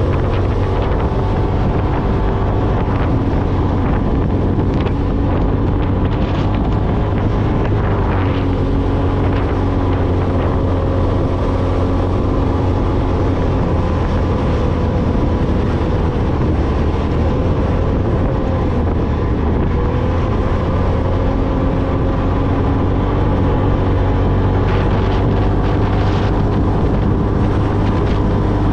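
Off-road vehicle engine running steadily while driving over sand dunes, its pitch shifting a few times, with wind noise on the microphone.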